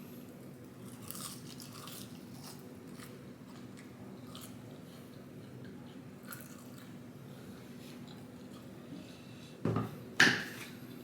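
Close-miked chewing and biting of McDonald's food, with small wet mouth clicks throughout and two louder noisy bursts close together near the end. A steady low hum runs underneath.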